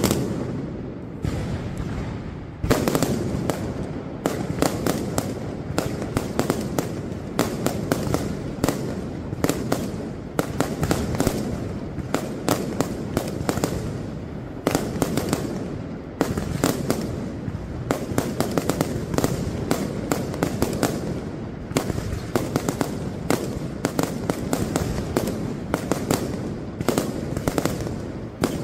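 Fireworks going off: a few separate loud bangs in the first three seconds, then a dense, near-continuous run of sharp cracks and bangs, many a second.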